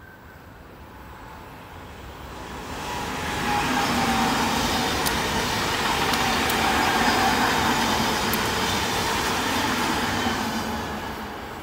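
Sydney Trains C set double-deck electric train passing: a rushing noise of wheels and motors builds from about two and a half seconds in, holds loud for several seconds with a few faint sharp clicks, then dies away near the end.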